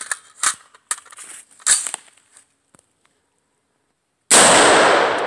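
A single shot from a Smith & Wesson M&P15 AR pistol with a 7.5-inch barrel, firing 55-grain .223 Remington full metal jacket: one sharp, loud crack about four seconds in, with a long fading tail. Before it come a few light clicks and rustles.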